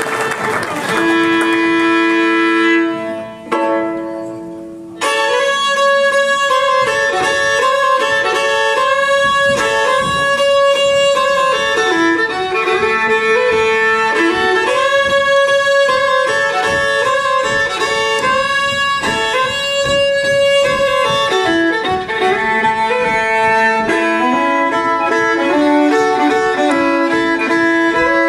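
Solo bluegrass fiddle. Applause fades out at the start, then a few long bowed notes die away into a short lull, and from about five seconds in the fiddle plays a fast tune of quick runs of notes.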